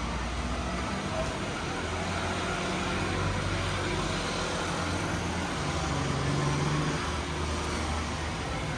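Street traffic: motor vehicle engines running and passing, a steady low hum over road noise that grows louder a little past the middle and then eases.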